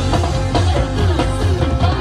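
Music with a heavy, pulsing bass and a steady beat.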